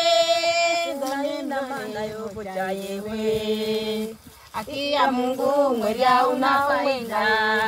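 Women's voices singing a song in one melody line, with long held notes and a short break about four seconds in.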